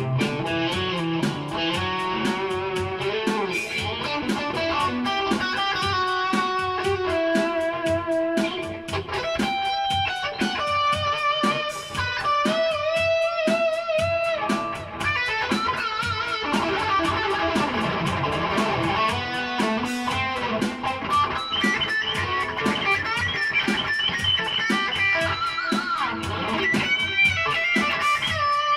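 Electric guitar playing an instrumental break: single-note lead lines with bent, wavering notes over a steady rhythm.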